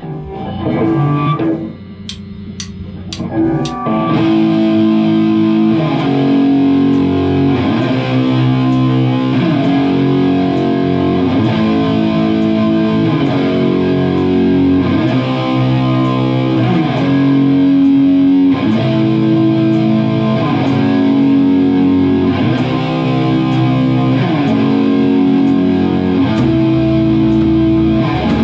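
Rock music led by distorted electric guitar. A sparse opening fills out into the full, steady arrangement about four seconds in, with chords changing every second or two over an even beat.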